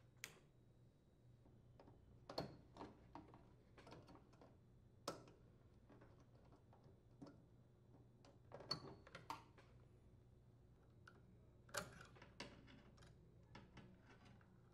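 Faint, irregular clicks and small rattles of push-on spade connectors being unclipped from the microwave transformer and magnetron terminals, a few of them sharper than the rest.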